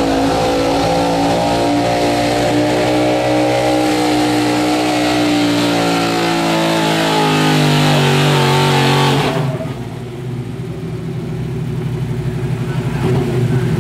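Square-body Chevrolet pickup's engine at full throttle pulling a weight sled, its pitch falling slowly under the load. About nine seconds in the throttle cuts off suddenly, and the engine drops to a lower running note that picks up again near the end.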